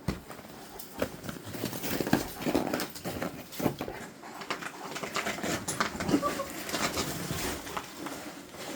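Footsteps knocking and scraping on ice, an irregular series of sharp clicks and scuffs.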